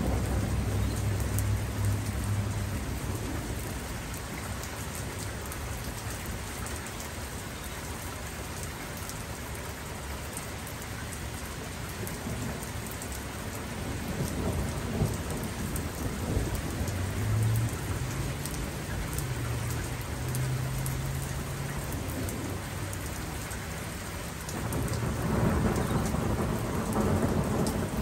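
Steady rain pattering on nearby surfaces, with low rolling thunder: a rumble at the start that dies away within a few seconds, fainter rumbling through the middle, and a louder rumble building about three-quarters of the way through.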